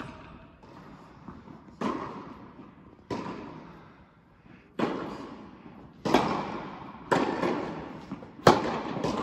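Tennis ball struck back and forth in a rally in an indoor tennis hall: six sharp pops a second or so apart, each trailing a long echo off the hall.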